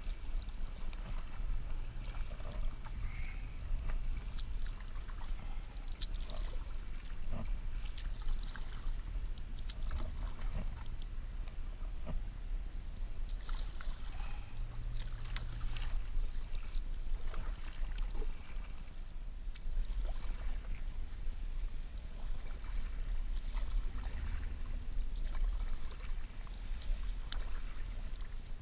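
Kayak paddle strokes: water splashing and dripping off the paddle blades in irregular small splashes, over a steady low rumble.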